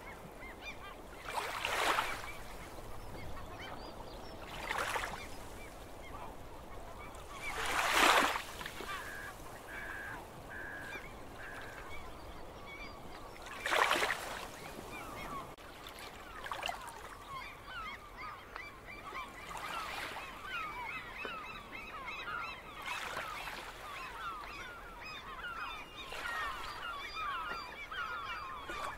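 Shoreline ambience: small waves wash in every few seconds, with birds calling over the water. About ten seconds in, one bird gives four short even calls, and in the second half many overlapping calls build into continuous flock chatter.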